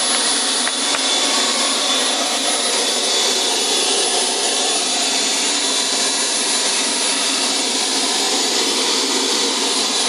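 Model gas-turbine jet engine in an RC F-105 Thunderchief running steadily at idle, about 35,000 rpm: a loud, even rush with a thin high whine on top.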